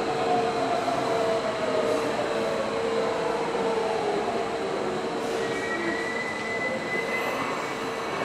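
Electric train noise at a station platform: a steady hum and whine beside a stopped commuter train. A tone glides slowly downward over the first few seconds, and a thin high squeal comes in about five seconds in and holds for a couple of seconds.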